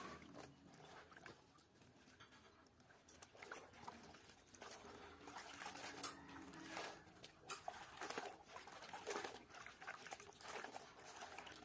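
Faint, irregular splashing and sloshing of water as a mordanted cloth is rinsed by hand in a tub of clean water, plunged, squeezed and lifted out, with a few sharper splashes in the second half.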